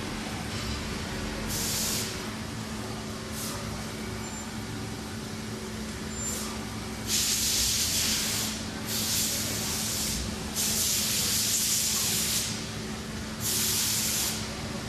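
A CNC router with a printer unit running with a steady hum, broken by hisses of air. There are a few brief hisses early on, then four longer hisses of one to two seconds each in the second half.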